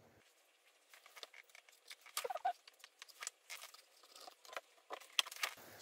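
Faint, scattered scratches, rustles and light taps of a marker pen drawing round shapes on a template sheet held against the back of an engine block, with a brief squeak about two seconds in.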